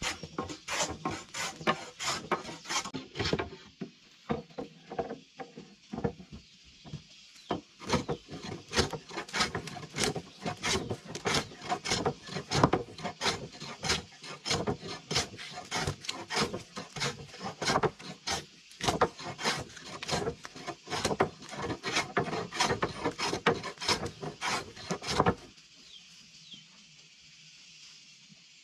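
Hand tool working wood in rhythmic rasping strokes, about two or three a second. The strokes thin out for a few seconds early on, then pick up again and stop about 25 seconds in.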